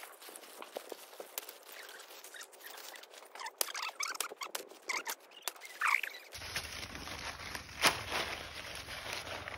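Coconut palm leaves rustling and crackling as they are handled, with scattered small clicks. A little over halfway through, the background changes suddenly to a low rumble, and there is a sharp knock near the end.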